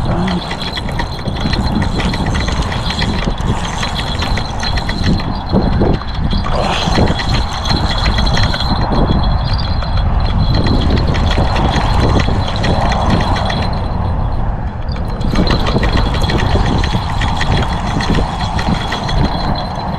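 Spinning fishing reel being cranked, its gears clicking rapidly, over wind buffeting the microphone.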